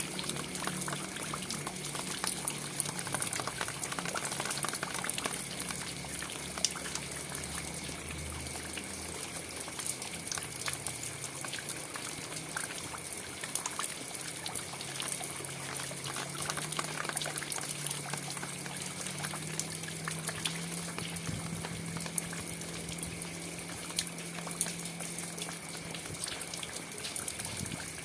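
Steady rain falling, an even hiss of water with many scattered sharper drop taps. A low hum shifts in pitch underneath.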